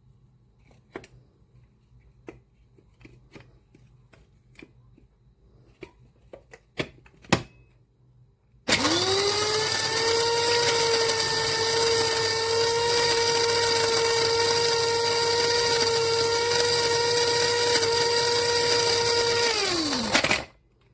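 Electric blade coffee grinder's motor starting with a quick rising whine, running at a steady high pitch for about eleven seconds, then winding down and stopping. Before it come scattered light clicks and knocks of handling, the loudest a little over seven seconds in.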